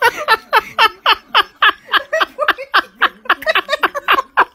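A person laughing hard in a rapid run of high-pitched bursts, about four a second.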